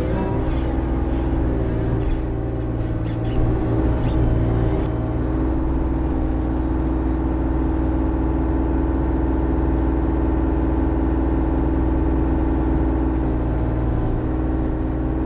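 Bobcat E35i mini excavator's diesel engine running steadily, heard from the cab. A few short knocks and clanks come in the first few seconds.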